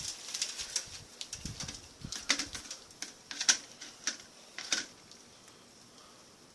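Handling noises of cricket feeding: a run of sharp clicks and taps, loudest about three and a half seconds in, with a few soft low thumps around a second and a half in, then quieter near the end.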